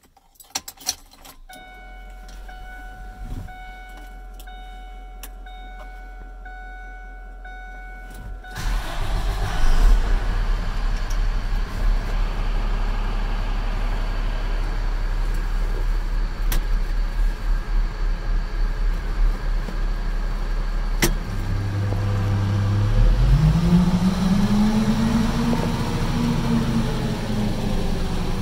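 Ignition key clicks, then a steady electronic warning tone from the dash. About eight seconds in, the Cummins diesel engine of a 2005 Ford F-650 dump truck cranks and starts. It settles into an idle and is revved up once and back down near the end.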